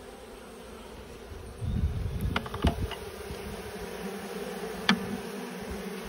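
Honeybees buzzing steadily around and inside a hive box holding a colony cut out of a tree. A few light knocks and some low handling rumble come partway through.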